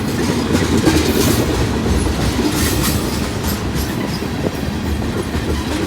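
Freight train cars rolling past close by: a steady rumble of wheels on rail, with sharp clacks as the wheels cross the rail joints.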